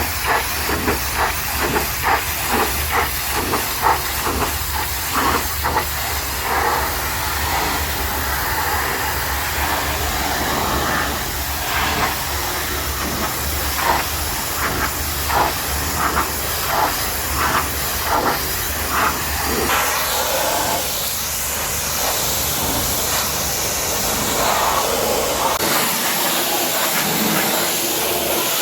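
High-pressure washer jet hissing against a mud-covered truck, surging in repeated pulses as the spray moves over the body. A low steady hum underneath cuts out near the end.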